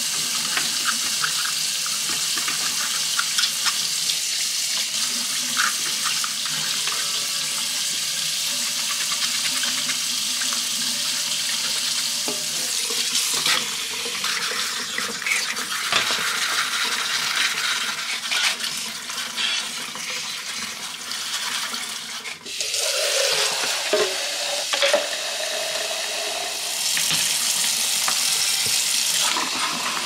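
Kitchen faucet running into a stainless steel sink while dishwasher filter parts are rinsed under the stream. In the last several seconds water fills a plastic cup, its pitch rising as the cup fills.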